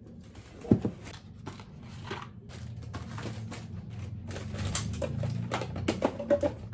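Household handling noises: a run of small clicks, knocks and rustles as objects are picked up and set down, with one sharper knock under a second in, over a low hum.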